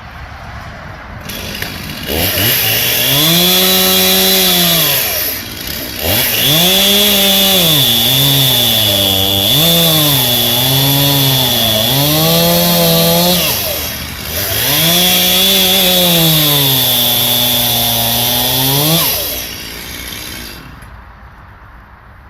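Two-stroke chainsaw revving in three long runs, its pitch rising and sagging as it cuts through limbs, then falling away to idle near the end.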